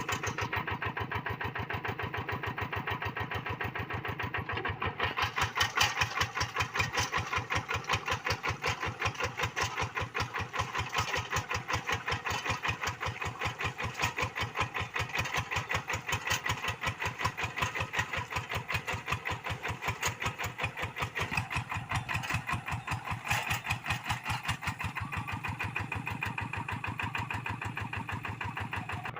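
Kubota RD85DI single-cylinder diesel on a hand tractor, running with a fast, even chugging beat.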